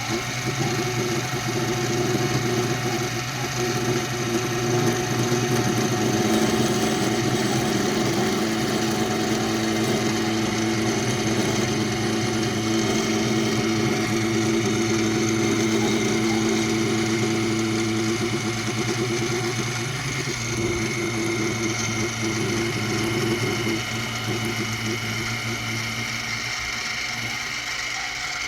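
Benchtop mini mill running steadily, its spindle spinning a pin while a tool bit turns down the diameter lathe-style. The hum swells in the first few seconds and eases slightly near the end.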